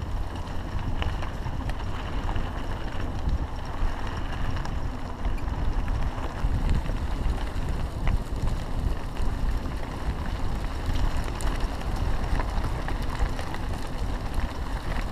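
Mountain bike riding over a gravel dirt track: steady rumble of knobby tyres on the gravel and rattling of the bike, with wind buffeting the microphone and scattered small clicks from stones.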